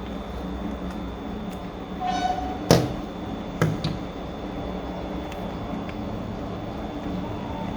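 Marshall Major 4 headphone parts being handled during disassembly: a brief creak of plastic about two seconds in, followed by a sharp click, then another click about a second later and a few faint ticks, over a steady low hum.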